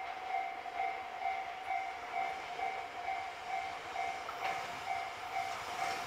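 Railway level-crossing warning bell ringing in even two-tone strokes, about two a second, as a Tokyo Metro 10000 series electric train approaches on a curve; the train's running noise grows louder in the last second or two.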